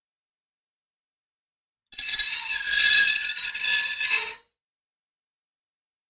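A piece of metal scraped against metal, starting about two seconds in and lasting about two and a half seconds: a gritty, high-pitched scrape with several steady ringing metallic tones through it.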